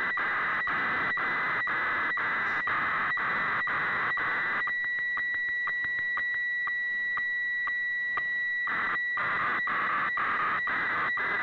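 Shortwave radio receiving an HF radiofacsimile (weather fax) broadcast: a hissing, warbling tone around the 1.9 kHz carrier, ticking about four times a second as the scan lines are sent. For a few seconds midway the hiss thins to a steadier tone and the ticks bunch closer together before the full pattern returns.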